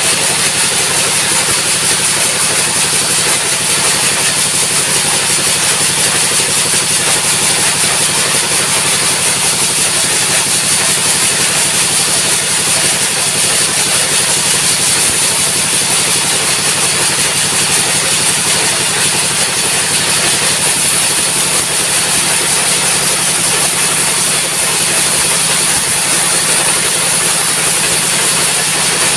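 An engine-driven sawmill running steadily at full throttle, with a constant low engine hum under a loud, high-pitched hiss.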